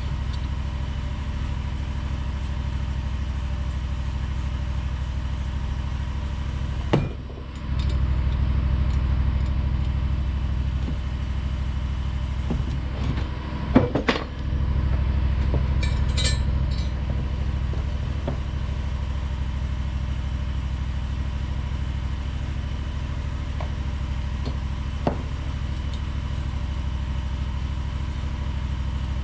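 A steady low mechanical hum, broken twice by short drops, with a few sharp metallic clicks and clinks about a third and halfway through.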